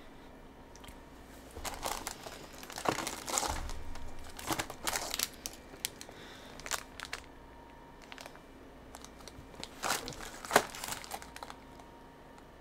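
Snack packaging crinkling as it is handled, in irregular crackles that stop and start, with the sharpest crackle near the end.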